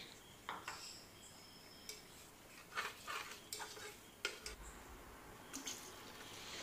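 Steel slotted spoon stirring thick masala in an aluminium pressure cooker, with scattered clinks and scrapes against the pot. Near the end water starts pouring into the cooker.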